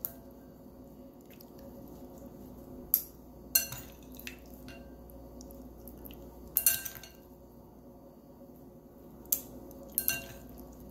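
Metal spoon and chopsticks clicking and tapping against a ceramic plate and glass bowl as salad is served, a handful of sharp clicks spread out over a faint steady hum.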